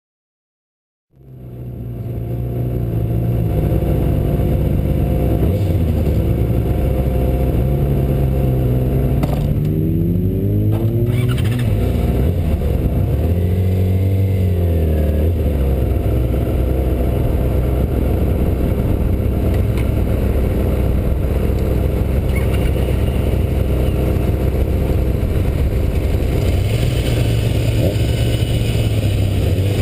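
Yamaha R6 sportbike's inline-four engine running close to the bike-mounted camera. It fades in about a second in, rises and falls in pitch in a few short revs near the middle, then runs on steadily.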